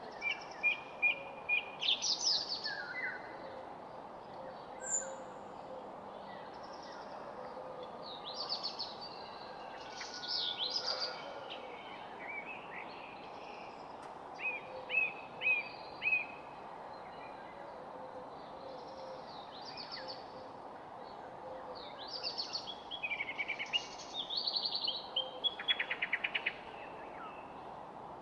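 Songbirds singing in bursts of quick chirps and short trills, with quieter gaps between the bursts, over a steady background hiss.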